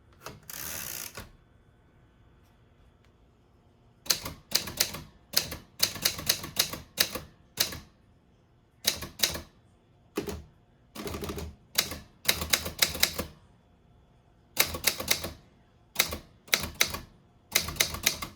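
A 1960s Underwood Touchmaster 5 manual typewriter being typed on: its typebars strike in quick runs of sharp clicks, in short groups with pauses between them. A rasp lasting about a second comes just before the typing starts.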